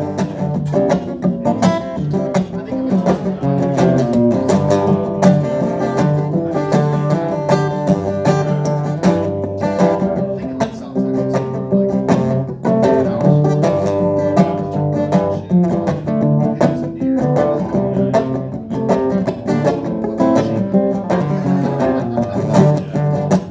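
Guitar playing an instrumental break in a blues song, picking quick notes over a steady chord rhythm, with no singing.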